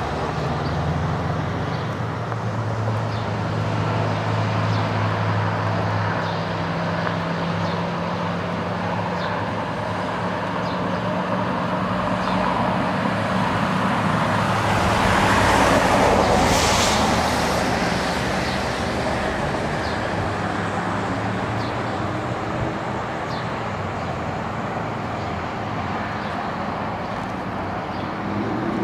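Diesel locomotive engine running with a steady low hum. A road vehicle passes about halfway through, its noise rising and then fading.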